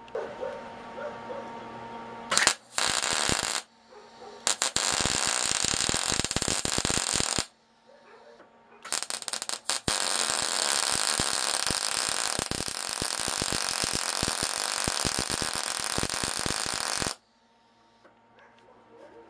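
MIG welder's arc crackling and spitting as a tab is welded onto a minibike kickstand, in three runs: a short one about two seconds in, a few seconds' bead after it, and a long steady bead of about eight seconds that cuts off near the end.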